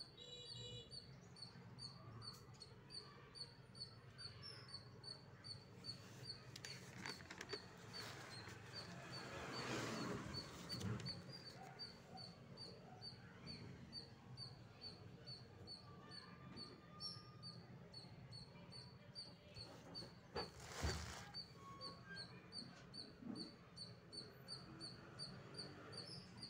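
Faint, evenly repeated high chirping, about two or three chirps a second, from a small creature. Paper rustles twice as notebook pages are turned.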